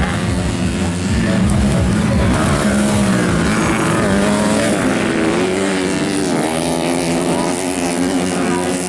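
Motocross dirt bike engines racing along a dirt track, with more than one bike at once. The engine note rises and falls repeatedly as the riders open and close the throttle going past.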